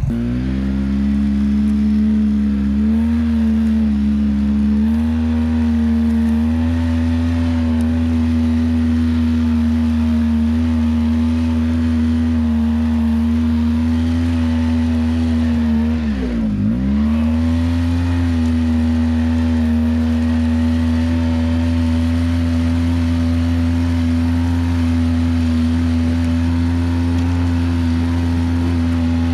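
ATV engine running at a steady speed under way, holding an even pitch. About 16 seconds in it drops sharply off throttle and picks straight back up.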